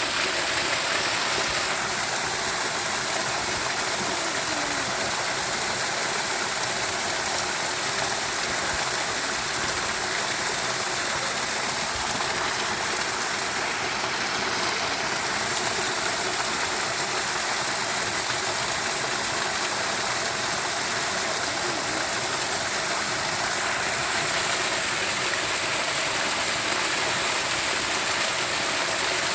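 Steady rush of flowing water, even and unbroken. A faint high buzz sits on top from about two seconds in until a few seconds before the end.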